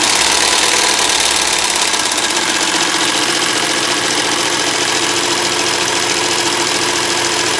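Singer 99K sewing machine running at speed on its replacement electric motor, a fast, even mechanical rattle of the needle mechanism over the motor's hum.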